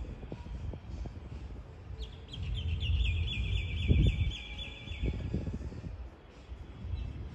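A bird calls once, a rapid trill of short high notes lasting under two seconds, about two seconds in. Under it is a low rumble of wind on the microphone, with a strong gust just after the trill.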